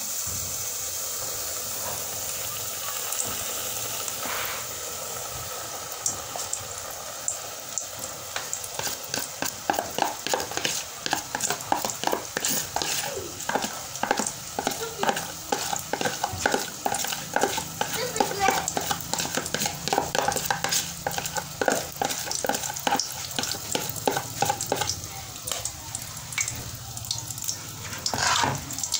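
Cake batter sizzling as it pours into a hot aluminium pot on a charcoal stove, a steady hiss at first. From about six seconds in, a spoon scrapes and taps quickly and repeatedly against the plastic container to get the last of the batter out.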